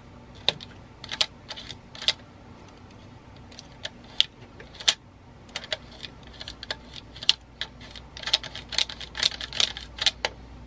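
Small metal tools clicking and tapping irregularly on the parts of a vintage Zeiss Ikon Ikoflex camera during a teardown, the clicks crowding closer together near the end.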